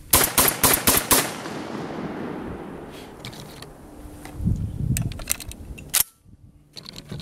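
Lion X6 semi-automatic shotgun firing a rapid string of about five shots in just over a second, with heavy game loads fired to break the action in. The report echoes away over the next couple of seconds. Then come small metallic clicks of shells being handled and pushed into the magazine tube.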